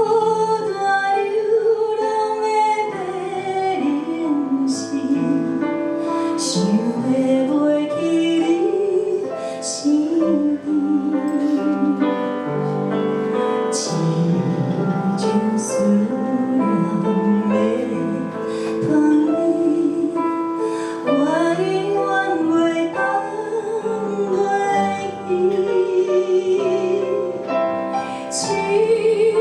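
Slow song with a woman singing a wavering melody over piano accompaniment.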